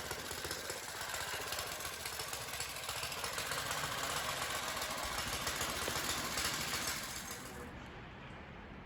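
Small go-kart engine running with rapid, even firing and a new carburetor fitted, growing a little louder and then quietening about seven seconds in.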